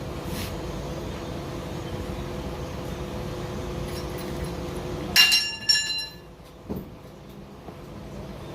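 Steady background hum, then about five seconds in a small metal tool or part clinking twice in quick succession with a bright ringing tone, followed by a fainter click.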